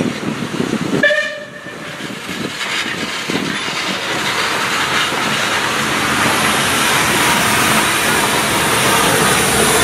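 Southern Railway Merchant Navy class steam locomotive No. 35006 running slowly past tender-first, its steam hiss building steadily as the engine comes level. A brief whistle toot about a second in.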